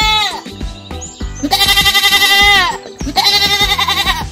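Goat bleating: two long, wavering bleats, about one and a half seconds apart, after the tail of another right at the start, over background music.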